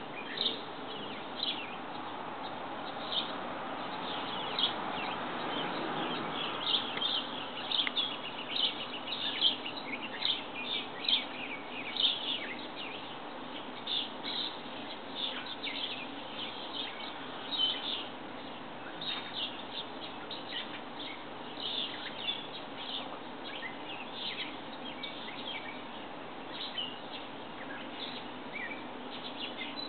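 Small birds chirping in many short, high notes, busiest in the first half, over a steady outdoor background rush that swells and fades during the first several seconds.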